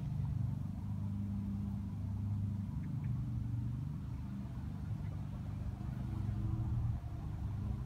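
A steady low rumble with no clear start or stop.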